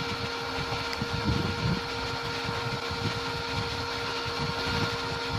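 Total inverter welding machine running after repair: its cooling fan whirring with a steady electrical hum, a sign that the machine now powers up fully.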